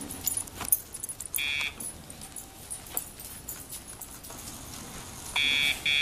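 Electronic buzzing tone that marks each press of a Dogtra e-collar's pager, the vibration cue the dog is feeling: one short buzz about a second and a half in, then two longer ones near the end. Light metallic jingling and clicks in between.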